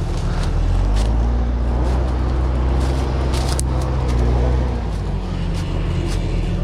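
A large engine running steadily with a deep, low note, louder between about one and five seconds in, typical of a diesel logging machine.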